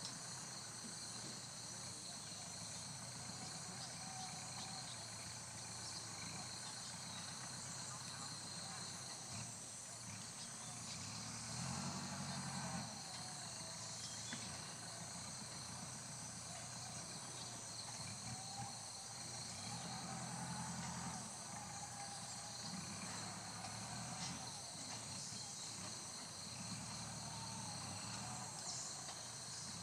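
Steady, high-pitched forest insect chorus, several tones held together without a break. A low drone swells briefly about twelve seconds in and again around twenty seconds.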